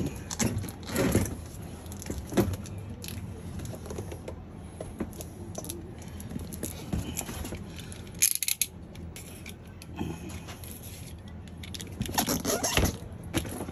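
A snap-off utility knife scraping and slicing along the taped seams of a cardboard box, in short scratchy strokes, with the box being handled and turned. A sharper rasp comes about eight seconds in, and a run of louder strokes near the end.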